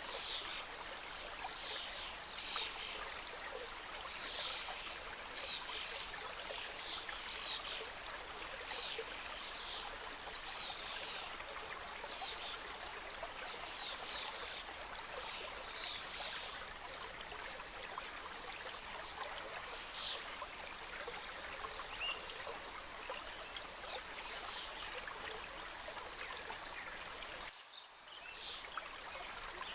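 Forest mountain stream rushing and cascading over rocks in a steady wash. Short high bird chirps repeat over it, thinning out after the first two-thirds. About two seconds before the end the water sound briefly dips away.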